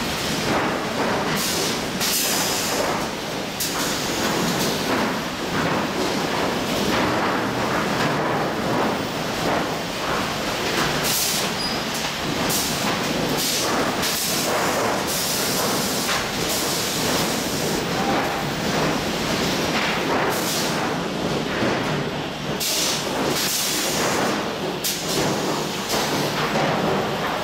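Automatic 12-foot lumber stacker running: a steady machinery din with repeated clattering knocks as boards and stickers are laid onto the stack.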